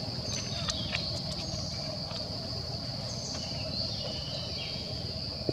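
Steady high-pitched insect drone, typical of cicadas or crickets, over a low background rumble, with a few faint short chirps and clicks.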